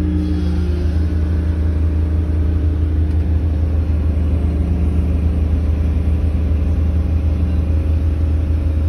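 Excavator's diesel engine running steadily with its hydraulics working as the boom and bucket are moved, heard from inside the cab: a constant low hum with a higher drone over it that stops near the end.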